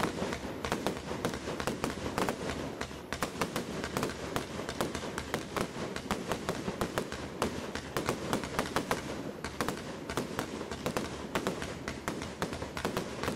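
A 100-shot firework cake with 30 mm tubes firing in a Z-shaped fan, its shots launching and bursting in a rapid, unbroken run of sharp bangs, several a second.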